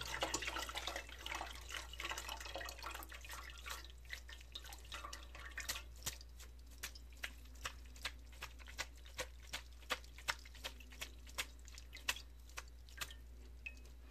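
Brisket pan juices draining through a mesh strainer into a metal pot. A faint trickle at first thins out to separate drips, about two a second.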